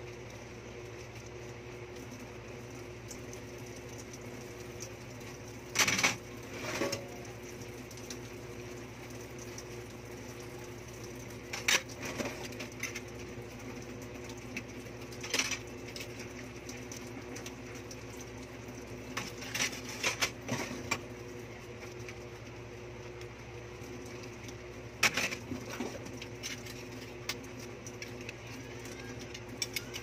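Dishes clinking and clattering now and then in a stainless steel sink as they are washed by hand, five or six short clatters spread through, over a steady low hum.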